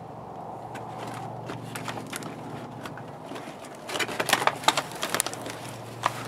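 Stiff plastic toy packaging and air-pillow wrap crackling and clicking as carded toys are handled and lifted out of a box. A faint steady hum for the first few seconds, then a run of sharp crackles about four seconds in, with a few more clicks near the end.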